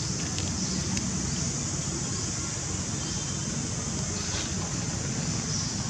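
Steady outdoor background noise: a low wind rumble on the microphone under a constant high hiss, with a few faint clicks.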